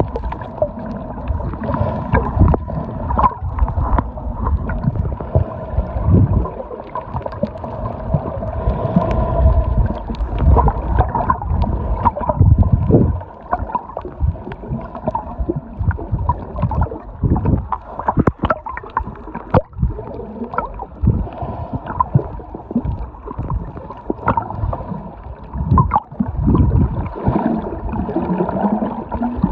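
Underwater sound from a submerged camera while snorkeling: muffled, uneven rumbling and gurgling of moving water with knocks and sloshes, and a steady hum underneath.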